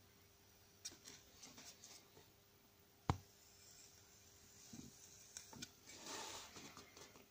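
Faint crackling and scratching as the red-hot wire tip of a wood-burning pen scorches plywood, with one sharp tap about three seconds in and a brief soft hiss a little after six seconds, as the burned wood flares into a small flame.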